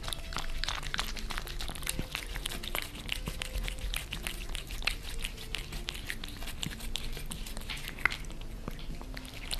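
Two cats licking at each other's mouths: a fast, uneven run of wet clicking tongue and mouth sounds.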